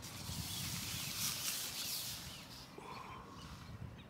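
Tent fabric rustling as someone crawls out through the tent door, louder in the first couple of seconds, with a few faint bird calls.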